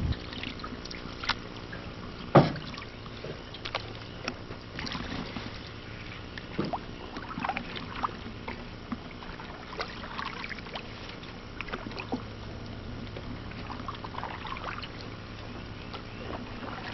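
Canoe being paddled on calm water: quiet paddle strokes with small splashes and trickling drips, and scattered light knocks. One sharp knock about two and a half seconds in stands out above the rest.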